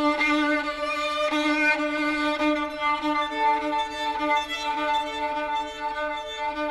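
Solo violin bowed in double stops: a low note held steady beneath a changing upper line, with a second sustained note joining about three seconds in.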